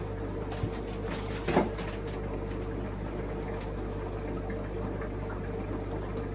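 Steady machine hum, with a single knock about a second and a half in.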